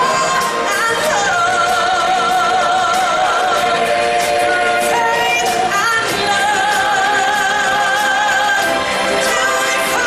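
Live stage-show song: singers holding long notes with vibrato over the show's band accompaniment, moving to new notes about a second in and again around six seconds in.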